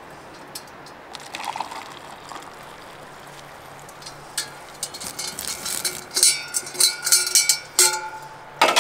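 Metal camp cookware being handled: pots, lid and cup clinking together, each knock leaving a brief metallic ring. The clinks come thick and fast through the second half.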